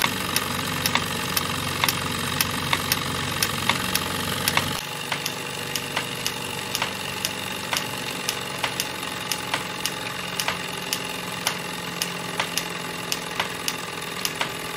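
Model live-steam engine running, driving a line shaft and belt-driven miniature workshop machines: a steady mechanical whir with a sharp click about two to three times a second. The low rumble drops a little about five seconds in.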